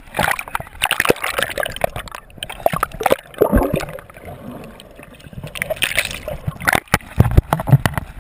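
Seawater splashing, sloshing and gurgling around a GoPro action camera as it dips under the surface and comes back up, in irregular bursts, with a few low thumps near the end.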